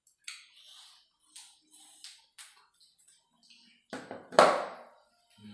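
Eating sounds at a shared meal of grilled skewers: a string of small clicks, scrapes and chewing noises, then a louder, short rush of noise about four and a half seconds in that fades quickly.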